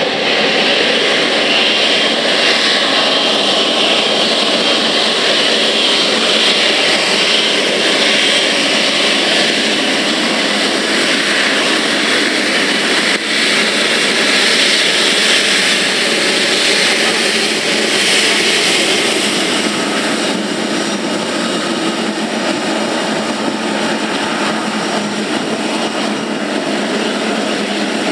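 Boeing 777-300ER's twin GE90-115B turbofan engines running at taxi power as the airliner taxis: a steady, loud jet noise with a faint high whine, easing slightly about two-thirds of the way through.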